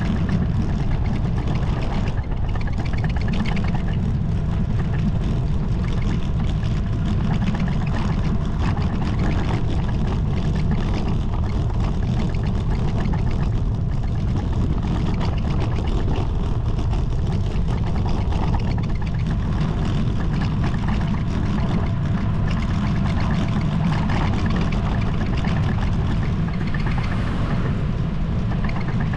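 Steady low rumble of wind buffeting the microphone of a camera on a moving bicycle, mixed with a hiss of road noise.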